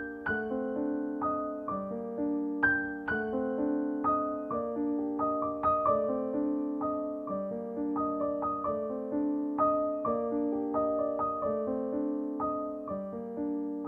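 Background piano music: a gentle melody of struck notes, about two a second, each ringing and fading out.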